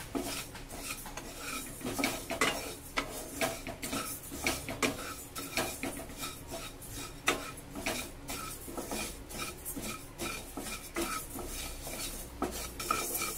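Wooden spatula stirring split moong dal roasting in a pan: the dry lentils rustle and scrape across the pan's surface in repeated strokes, about two a second.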